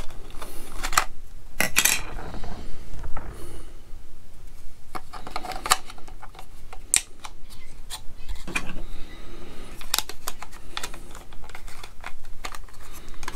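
Irregular small clicks, taps and scrapes of a FlySky FS-GT3C radio transmitter's plastic battery compartment being handled as its battery is fitted in.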